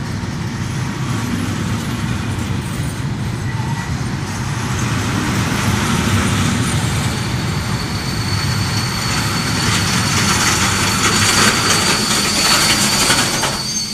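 Freight train of container wagons rolling past at close range: a steady rumble and rattle of wheels on rail. The noise grows louder and hissier in the second half, with a faint thin high-pitched squeal running alongside it.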